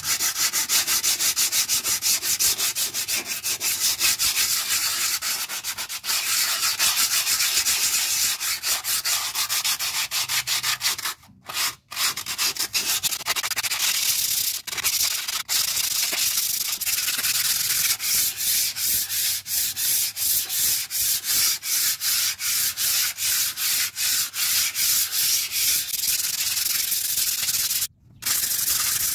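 Sandpaper rubbed by hand over the concrete wall of a basin in quick, rhythmic back-and-forth strokes, with short pauses about eleven seconds in and near the end.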